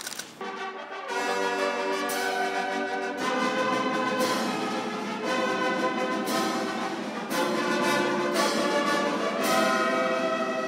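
Brass band playing a slow passage of held chords that change about once a second.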